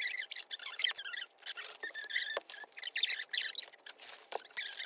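Album packaging and photocards being handled and opened: a continuous crinkly rustling of paper and plastic with many small clicks.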